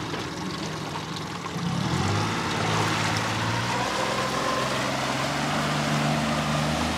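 Small Mercury outboard motor pushing an aluminium tender, running at low speed and then opening up about two seconds in, its pitch rising and getting louder before holding steady under way, with the rush of its wake.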